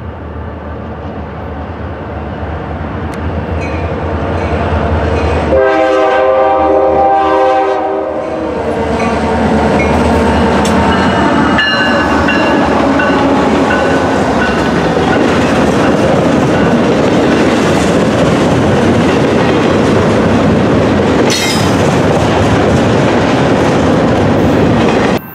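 EMD diesel freight locomotive approaching with its engine rumbling, then sounding its multi-tone air horn in one blast of about three seconds, about five seconds in. The train then rolls close past with loud, steady wheel-on-rail noise from its freight cars, with a few brief high squeals and clicks.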